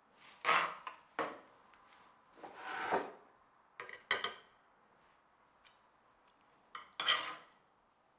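Metal ladle scraping and clinking against a roasting dish while roast pork pieces are scooped out and served onto a plate. There are several short, irregular scrapes and clinks, the loudest near the end.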